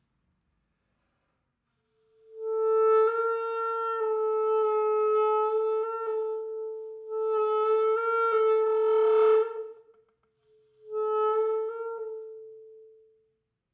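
Clarinet holding a long note on one pitch for about eight seconds, wavering slightly in pitch, with a breathy, noisy rasp near its end; after a brief break the same note returns and fades away.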